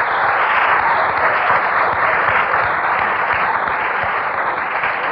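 Audience applauding steadily after a punchline.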